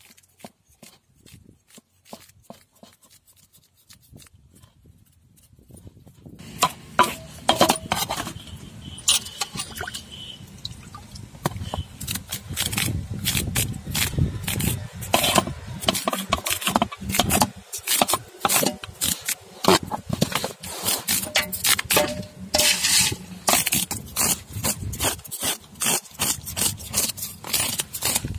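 Knife scraping the scales off a large whole fish lying in a metal basin, in quick repeated strokes. Only faint scattered clicks for the first several seconds, then steady scraping from about six seconds in.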